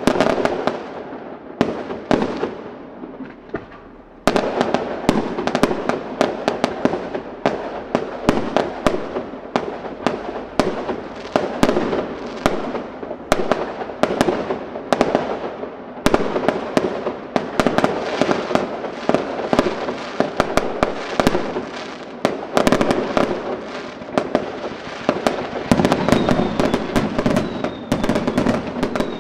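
Aerial fireworks shells bursting in a rapid, almost continuous barrage of bangs. The bangs thin out briefly about two to four seconds in, then resume abruptly and keep going densely.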